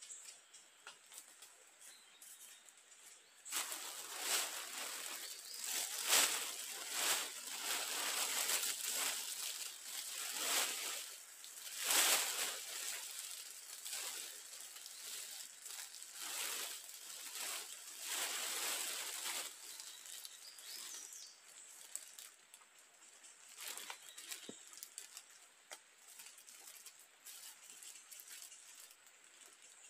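Plastic sheeting crinkling and rustling as it is handled close to the microphone, from about four seconds in until about nineteen seconds in; after that only lighter, scattered rustling.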